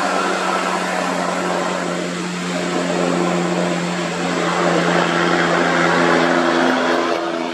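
Road traffic passing close: a car's tyres and engine going by, followed by a Hino tanker truck's diesel engine running with a steady drone. The noise builds to its loudest as the truck draws level, about six seconds in, then drops away near the end.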